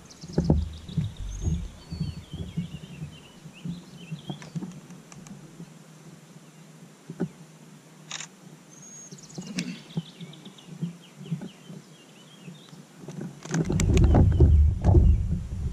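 Songbirds chirping and whistling steadily in the background, over scattered low knocks of gear being handled in a kayak. A loud low rumble comes in near the end.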